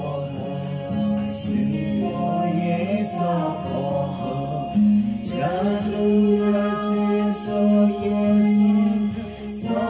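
A man singing a slow Buddhist devotional song in long held notes, over a sustained instrumental backing.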